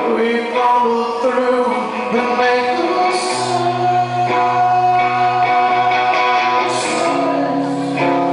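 Live rock song: a man singing with electric guitar and band accompaniment, a held, sustained vocal melody over the music.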